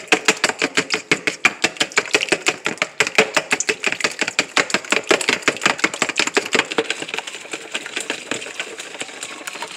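Wire whisk beating raw eggs in a plastic mixing bowl, a fast even run of clicks as it strikes the bowl several times a second, growing softer in the last few seconds.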